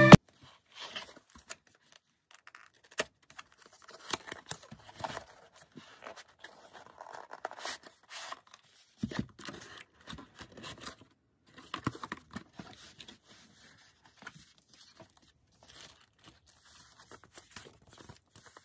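Cardboard and paper packaging being handled and opened by hand: irregular scrapes, taps and rustles of card and paper.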